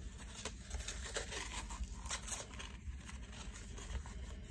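Faint rustling and scratching of a hook-and-loop (Velcro) wrist strap being pressed and adjusted by hand on the wrist.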